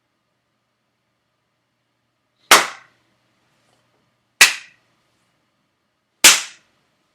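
Three loud, sharp slaps of a hand on a cheek, about two seconds apart, each snapping off quickly.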